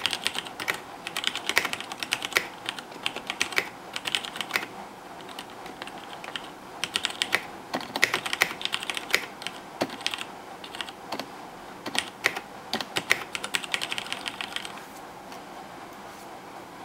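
Typing in quick bursts on a KBC Poker mechanical keyboard with Cherry MX Red (linear) switches, fast runs of keystrokes separated by short pauses. The typing stops shortly before the end.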